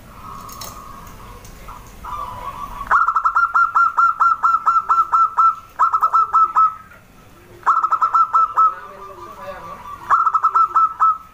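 Zebra dove (perkutut) calling: four bursts of rapid, evenly repeated cooing notes, the first and longest lasting about two and a half seconds.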